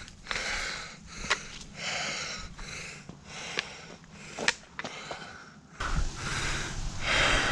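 Heavy, rhythmic breathing of a hiker climbing a steep trail, a puff about once a second, with a few sharp taps of footsteps on rock.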